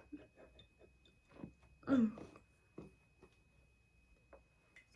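Faint small mouth and lip clicks, with a woman's short wordless vocal sound, falling in pitch, about two seconds in.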